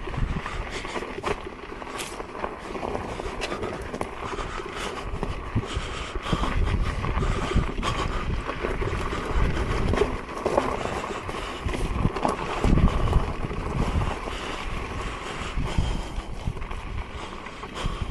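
An electric unicycle being ridden over a rough off-road trail: continuous tyre and riding noise, wind buffeting the microphone in low gusts, and scattered clicks and knocks from the rough ground.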